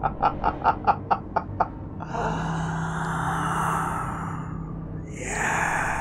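A man's low, drawn-out laugh, a quick run of about five 'ha' pulses a second that stops a second and a half in. It is followed by two long breathy exhales over dark background music.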